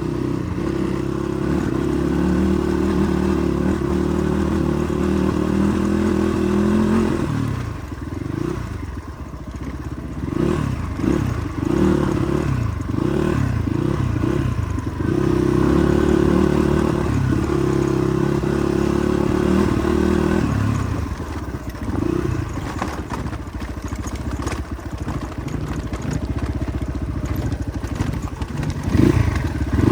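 Motorcycle engine running on an off-road ride. It holds a steady pitch for several seconds at a time and, in between, revs up and down in quick swells as the throttle is worked.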